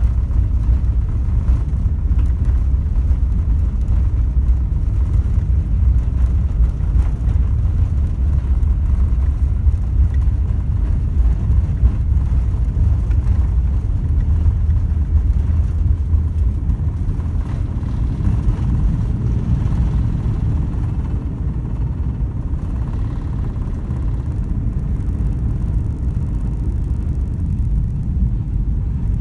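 Airbus A380 takeoff heard inside the upper-deck cabin: a loud, steady low rumble of the four jet engines at takeoff thrust and the wheels on the runway. The deepest rumble eases a little past the middle as the aircraft lifts off and climbs.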